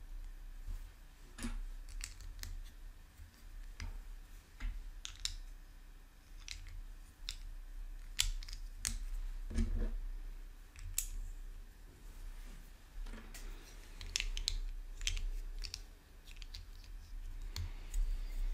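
Plastic Lego pieces clicking and clattering as they are picked out and pressed together, in scattered irregular clicks.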